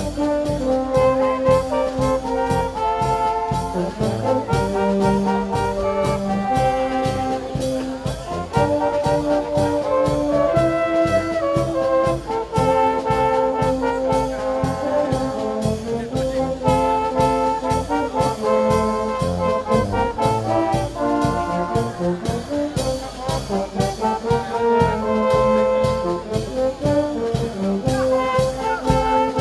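Brass-led music with a steady beat, trombones and trumpets carrying the tune.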